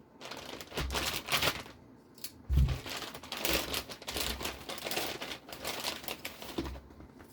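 Plastic parts bags and packaging being handled and rummaged through, in irregular rustling, crinkling bursts, with a few light knocks, the loudest about two and a half seconds in.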